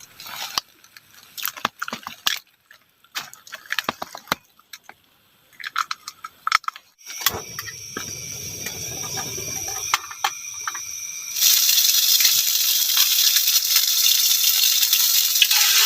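Cooking utensils clicking and rattling, then about eleven seconds in a loud, steady sizzle starts suddenly as omelette batter goes into a hot pan.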